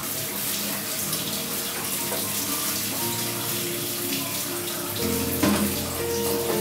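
Steady hiss of a tap running into a kitchen sink, with instrumental background music coming in about halfway through and growing louder near the end.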